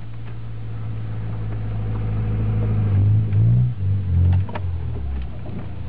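Trabant with a 1.3-litre Volkswagen Golf engine and a new exhaust system, heard from inside the cabin while driving slowly: a steady low engine drone, with two short surges in revs about three and a half seconds in and a second later.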